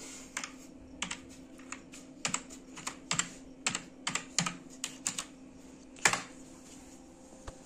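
Typing on a computer keyboard: irregular single key clicks as a short word is entered, with one louder key press about six seconds in.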